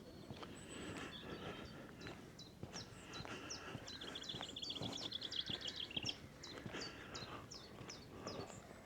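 Small songbirds calling in the countryside: repeated short, high chirps throughout, with a rapid trill from about four to six seconds in.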